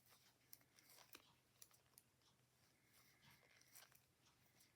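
Near silence with faint, irregular clicks of knitting needles as a round of a mitten is knitted.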